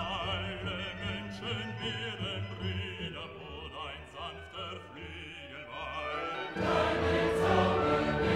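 Background classical music with operatic singing and choir; it grows louder and fuller about six and a half seconds in.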